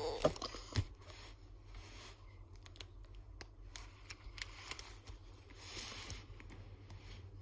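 Plastic binder sleeve pages being handled and turned, with crinkling, clicks and a short falling squeak near the start, and a rustling swish about six seconds in as a page flips over.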